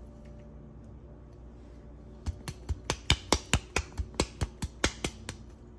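Glass jar of rose petals being shaken, giving a quick, even run of sharp clicks, about five a second, for about three seconds from about two seconds in.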